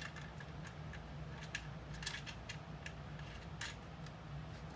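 Irregular light clicks and taps of bolts being fitted by hand into a quilting frame's sidearm assembly, metal against metal, as the sidearm is bolted on.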